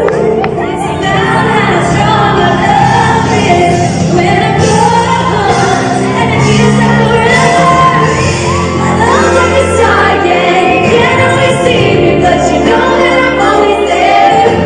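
Live pop music: a female lead singer's amplified vocal over a full band, heard from the audience.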